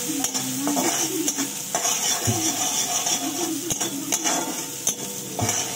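A spatula stirring and scraping ginger and garlic frying in oil in a steel wok. The oil sizzles steadily under irregular scrapes and knocks of the spatula against the pan.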